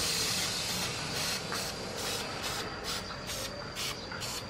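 Aerosol can of conformal coating spraying onto an induction cooker's circuit board: a steady hiss at first, then a series of short puffs about twice a second.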